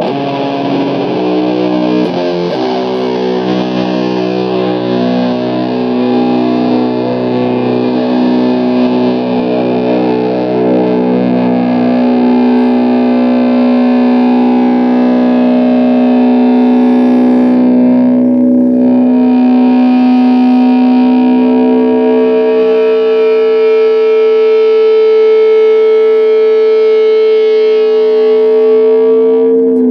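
Gibson SG electric guitar played through heavy distortion: a chord is struck about two seconds in and left to ring, sustaining and slowly growing louder, with a higher steady note swelling in about twenty seconds in and holding.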